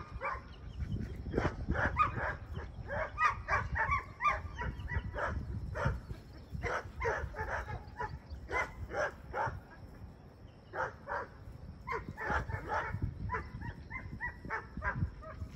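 Dogs barking and yipping in quick runs of short, sharp barks, several a second, with a brief lull about ten seconds in.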